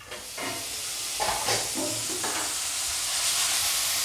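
Courgette batons frying in olive oil in a stainless steel sauté pan, a steady sizzle that swells over the first second and then holds.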